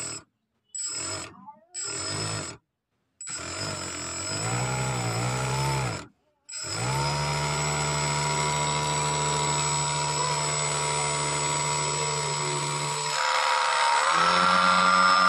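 Small drone motor spinning a cooler motor as a generator, whining in a few short spurts, then wavering in pitch. It then runs steadily and steps up to a higher whine near the end as its speed is raised.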